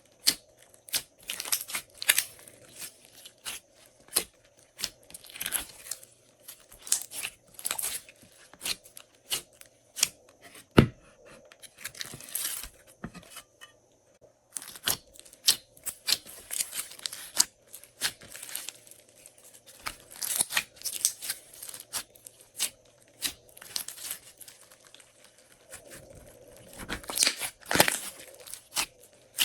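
Glossy slime being squished and stretched by hand, giving off irregular sticky crackles and pops, with one sharp click about eleven seconds in.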